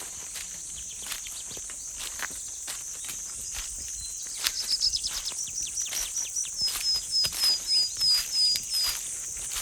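Steady high-pitched drone of jungle insects, with irregular footsteps. About halfway through, a run of short, high chirps starts fast, settles to about three a second, and stops near the end.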